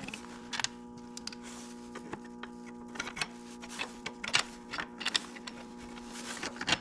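Scattered light metallic clicks and taps of hand tools and a bolt being worked into place, over a steady hum.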